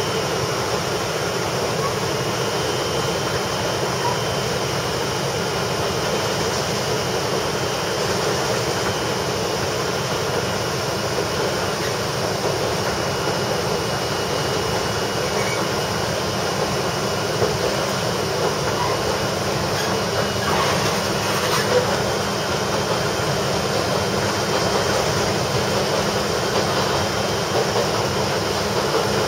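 Kominato Railway KiHa 200 diesel railcar running along single track, heard from inside the driver's cab as a steady mix of engine and wheels on rail. The track is rough here, and a few small knocks stand out in the second half.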